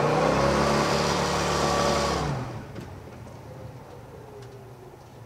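Car engine held at high revs during a smoky burnout, with a hiss from the spinning rear tyres, heard from inside the cabin. A little over two seconds in the revs drop off sharply and the engine falls back to a quieter run.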